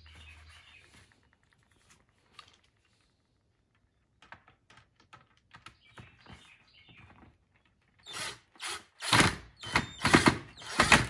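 Cordless driver running a #8 self-drilling sheet-metal screw into a plastic hubcap to fasten a PVC connector. Quiet handling clicks come first, then from about eight seconds in the driver runs loudly in a string of short trigger bursts.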